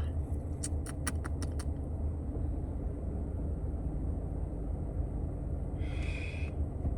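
A steady low rumble, with a quick run of light clicks about a second in and a short hiss near the end.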